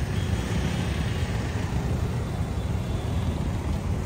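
City road traffic noise from passing cars and motorcycles, a steady rumble that is heaviest in the low end.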